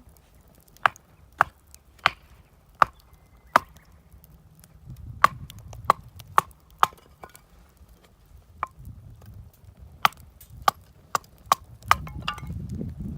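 Repeated sharp chopping strikes on wood, about fifteen blows in loose groups of two to five, each with a short ring.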